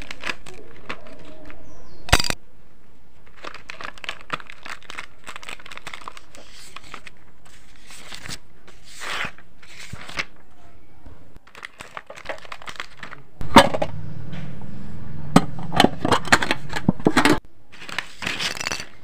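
Clear plastic packaging crinkling and rustling as stationery is handled and unpacked, with scattered clicks and taps of pencils and a pencil case being picked up and set down; the busiest, loudest handling comes in the last third.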